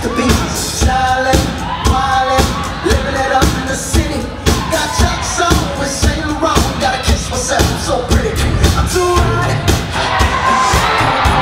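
Dance routine music played loud: a track with sung vocals over a steady beat.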